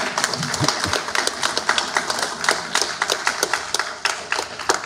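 Small audience applauding: many hands clapping together in a dense patter, sparse enough that single claps stand out, thinning out near the end.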